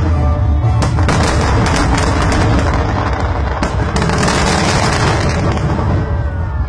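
Aerial fireworks display going off: a dense, continuous run of bangs and crackling, with music playing along.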